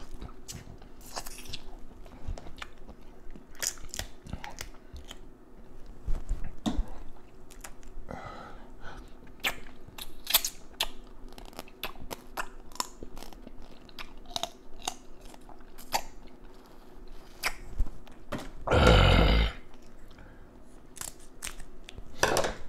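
Close-miked eating of Dungeness crab: shell cracking and crunching and wet chewing and smacking, a quick irregular run of clicks, with one louder burst lasting under a second about three-quarters of the way through.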